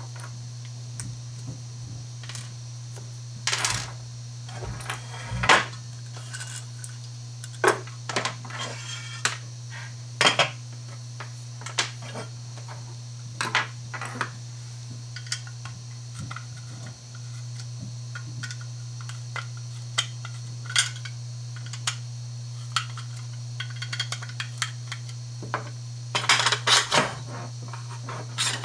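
Small plastic and aluminium curtain-track parts being handled and set down on a wooden table: scattered clicks and clacks, with a quick run of them near the end. A steady low hum runs underneath.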